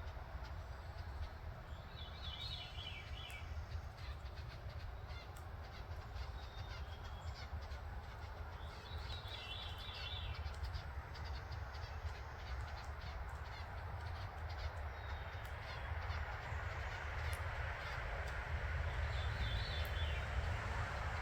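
A songbird sings a short phrase three times, about 2, 9 and 19 seconds in, over a steady low rumble and a background hiss.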